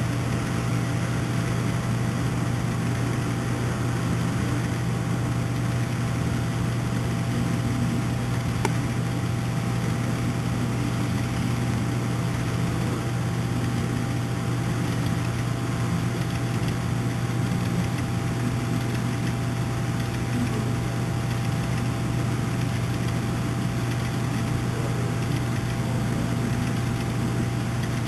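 Long HO scale model coal train rolling steadily past: an even, unbroken hum with the rumble of many freight cars' wheels on the track.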